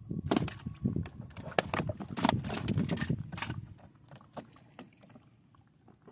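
Freshly caught tilapia and carp flopping in the bottom of a wooden canoe, slapping against the hull: a fast, irregular run of loud slaps and knocks that eases off after about three and a half seconds, leaving a few scattered knocks.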